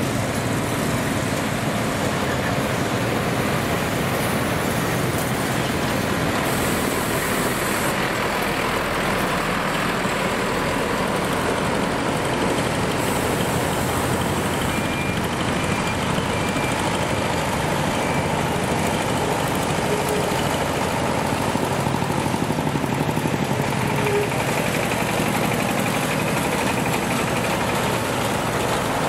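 Street traffic: old trucks and motorbikes driving past with their engines running, at a steady overall level.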